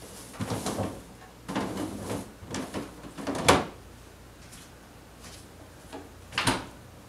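Rummaging in an open refrigerator: several short clattering and rustling knocks as things are handled, the loudest a sharp clack about three and a half seconds in, then another knock of a door or drawer shutting about six and a half seconds in.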